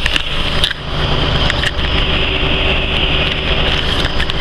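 Train running noise heard from on board: a steady noise with scattered clicks and knocks.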